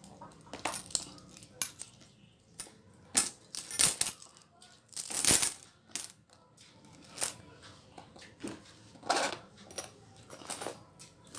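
Coins clinking as they are dropped into a small zippered coin purse woven from plastic snack wrappers, then clinks and rattles as the purse is handled. The sounds come as a string of sharp clicks with a few longer, hissier bursts; the loudest is about five seconds in.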